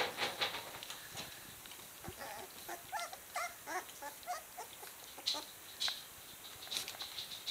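Three-week-old Appenzeller Sennenhund puppies nursing: a quick run of about ten short, squeaky whimpers about two seconds in, with scattered sharp clicks from the suckling litter before and after.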